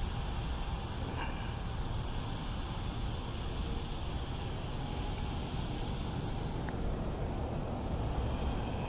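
Steady outdoor background noise of road traffic with a low rumble, with no distinct events.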